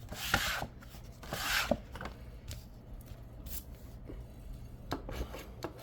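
Scratch-off lottery ticket being scratched: two short rasping scrapes in the first two seconds, then a few light taps and ticks.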